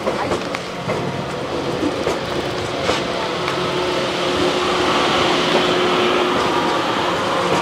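The TRAIN SUITE Shiki-shima (E001 series) cruise train running past at close range, a steady rolling rumble with scattered clicks from the wheels and a steady hum, growing louder toward the middle.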